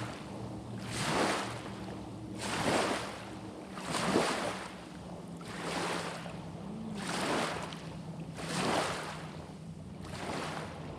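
Water swishing in regular surges about every second and a half, like lake water lapping or a paddle stroking, over a faint steady low hum.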